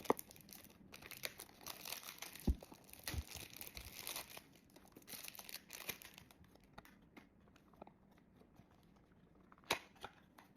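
Perfume packaging being unboxed by hand: wrapping and cardboard crinkling and tearing, with scattered clicks and taps. It thins out in the second half, and a single sharp click comes near the end.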